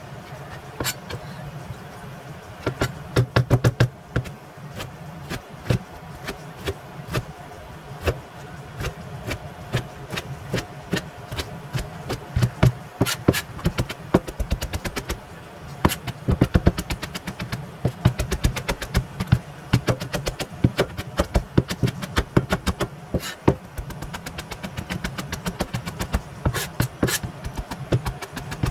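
Kitchen knife chopping vegetables on a cutting board: quick runs of sharp knocks with short pauses between, over a steady low hum.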